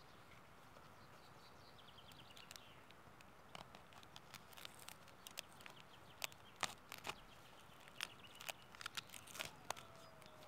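Knife cutting up an onion on a small chopping board: faint, irregular sharp clicks and taps, more frequent after the first few seconds.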